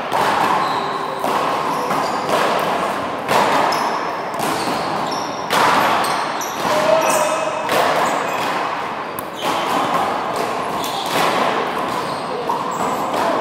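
Handball rally: the small rubber handball smacked by open hands and slapping off the wall and floor, a string of sharp hits at irregular spacing, about one a second.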